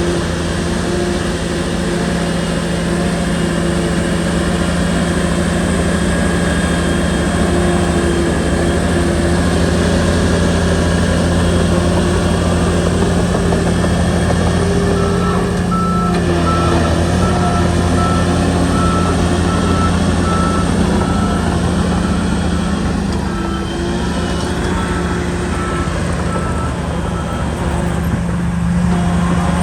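Shantui bulldozer's diesel engine running steadily under load as it works. About halfway through, a back-up alarm starts beeping at an even pace and keeps on for a while.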